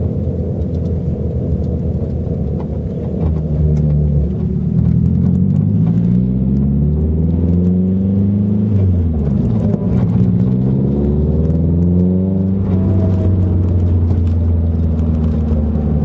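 Nissan 240SX S14 being driven, its KA24DE four-cylinder engine and drivetrain running as it speeds up for several seconds. About nine seconds in the pitch drops and climbs again, then holds steady, with higher tones rising near the end. This car's newly fitted viscous limited-slip differential whines and grinds off the throttle, and the owner suspects a bad diff or wheel bearings.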